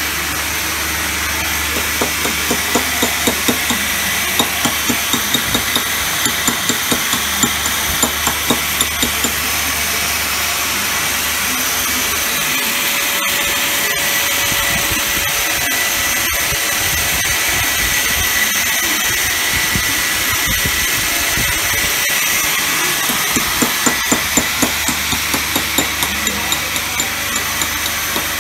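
Light, rapid tapping of a hand tool on marble inlay work, about three strikes a second, in runs near the start and again near the end, over a steady workshop hiss and hum.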